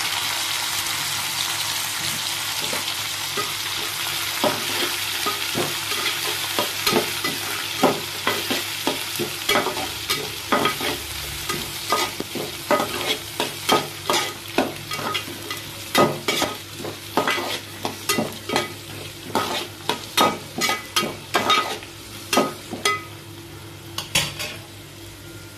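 Chopped tomato, onions, peanuts and cashews frying in hot oil in a metal kadai. The sizzle is strongest at first and slowly fades. From a few seconds in, a spoon stirs the mix, knocking and scraping against the pan in repeated strokes.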